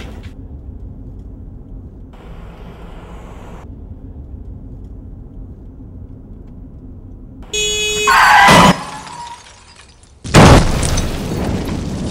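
A car explodes: low steady rumble at first, then a few seconds before the end a brief blaring tone and a loud burst of noise, a short lull, and a sudden loud explosion boom that rumbles on as the car burns.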